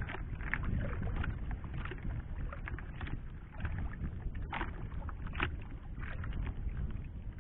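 Small wooden fishing boat rocking at sea: water lapping and slapping against the hull, with scattered knocks and splashes over a steady low rumble of wind on the microphone.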